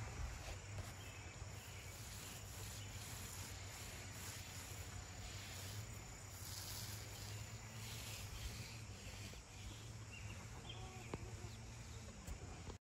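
Faint, steady outdoor background noise with insects calling.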